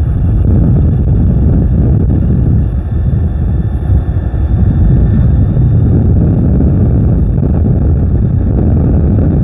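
Wind buffeting the microphone, with tyre and road noise, as an Ather 450X Gen 3 electric scooter rides at about 50 km/h. The rumble is loud and steady, with a rapid flutter.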